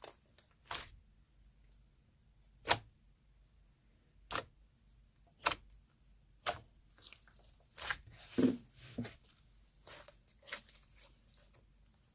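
Soft clay slime being handled by hand, giving short sharp clicks about once a second, the loudest about three seconds in, with a longer, lower sound about eight seconds in.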